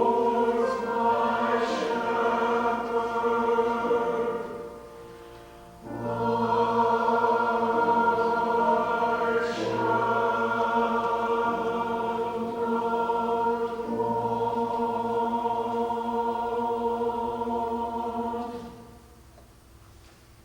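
Choir singing long held chords in two phrases, with a short break about five seconds in, stopping shortly before the end.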